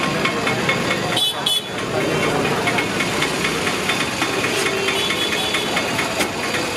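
Steady roadside noise of running vehicle engines, with rapid light ticking and a brief high tone a little over a second in.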